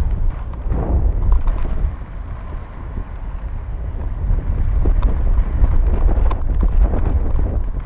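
Wind buffeting the microphone of a GoPro on a rising high-altitude balloon payload: a heavy, low rumble that swells and eases in gusts.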